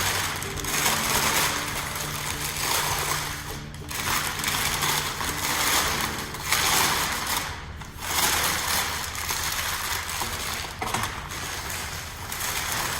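Packing paper crinkling and rustling as it is wrapped around a metal globe, in uneven spells with brief pauses.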